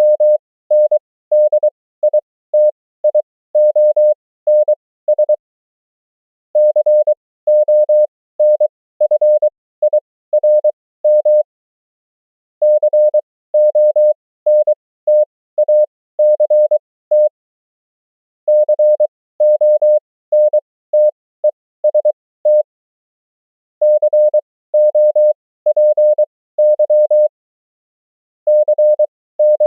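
Morse code (CW) practice tone: a single steady pitch keyed into dots and dashes at 23 wpm character speed with extra spacing for an effective 20 wpm, sending common amateur-radio words and abbreviations. The runs of code are broken by pauses of about a second.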